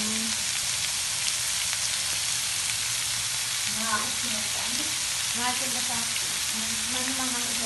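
Pork belly, sausages and enoki mushrooms sizzling steadily on a hot grill pan over a portable gas stove.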